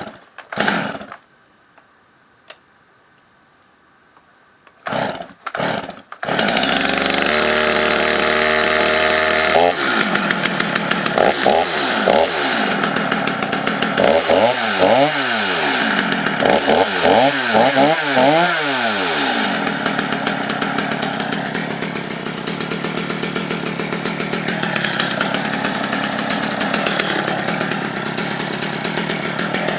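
Stihl MS 250, a 45cc two-stroke chainsaw, pull-started and catching about six seconds in. It idles briefly, is revved up and down several times, then runs steadily.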